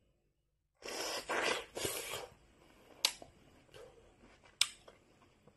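Biting into a ripe, juicy apricot and chewing it: wet, squelchy bites about a second in, then softer chewing with two sharp clicks.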